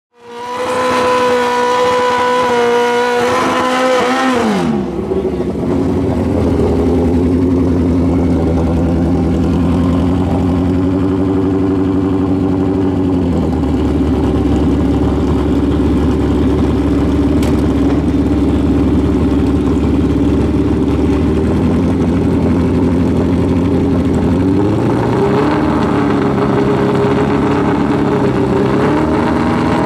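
Drag-racing motorcycle engines. A high, steady rev is held for about four seconds, then drops sharply to lower, steady running. It sinks nearer idle partway through and rises in pitch again near the end.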